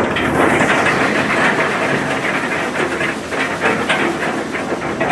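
Steady rushing, crackling noise of choppy sea water washing and splashing, mixed with wind.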